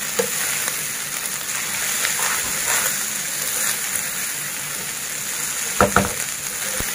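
Egg fried rice sizzling with a steady hiss in a nonstick kadai as a spatula stirs and tosses it. The spatula knocks against the pan twice near the end.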